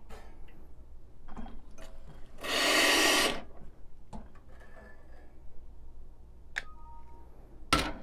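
Espresso machine group head flushing briefly, a rush of water hiss lasting about a second. Small clicks of handling follow, then a sharp metallic clack near the end as the portafilter is brought to and locked into the group head.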